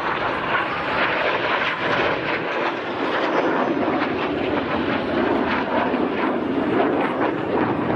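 Red Arrows BAE Hawk T1 jets' turbofan engines making a steady rushing jet noise as the aircraft fly past in a display. The sound deepens from about two and a half seconds in.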